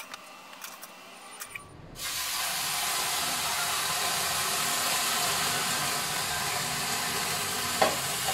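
Water poured from a metal kettle into a hot tray in a preheated oven, hissing loudly into steam for the bread bake. The hiss starts about two seconds in, after a few sharp metal clinks.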